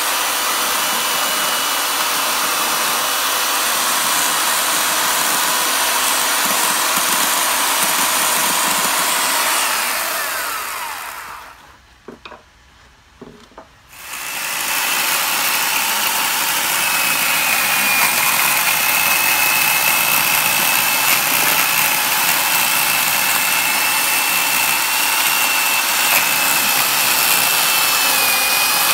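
Small handheld chainsaw running and cutting into a bonsai trunk's deadwood. It dies away about ten seconds in, falls quiet for a couple of seconds, then runs again with a steady high whine.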